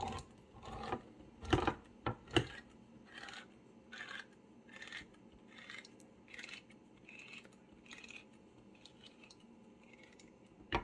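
KitchenAid manual can opener cutting around the lid of a tin of tuna, its key turned stroke by stroke, giving a series of short clicks and scrapes. The clicks are loudest in the first two and a half seconds and fainter after.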